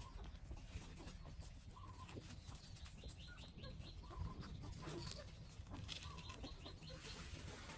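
Faint, brief animal calls: short chirps every second or so over a low rumble.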